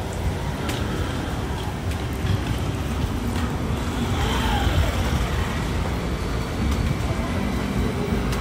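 Street ambience with a steady low rumble of traffic, and a motor scooter riding past close by about four seconds in.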